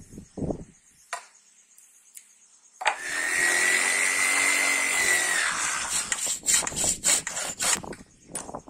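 A few knocks of wood being handled, then about three seconds in a Makita jigsaw starts cutting through an acacia wood plank, its motor whining steadily. After a couple of seconds the steady whine gives way to a run of irregular scraping and knocking noises.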